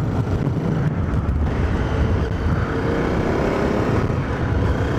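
Honda CRF250L's single-cylinder four-stroke engine running steadily as the motorcycle cruises along a paved road.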